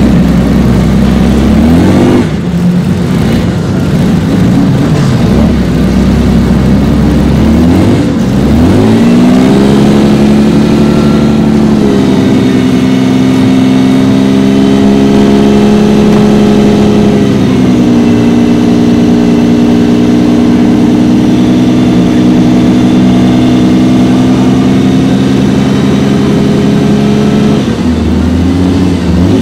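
1975 Ferrari 365 GTB/4 Daytona's 4.4-litre V12 running with the car backing up. It is revved up and down a few times in the first ten seconds, then held at a steady raised speed for long stretches, with a brief dip about halfway and a drop and rise near the end.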